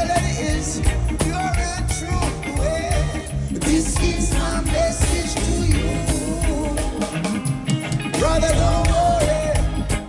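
Live reggae band music, with a voice singing a melody over the band.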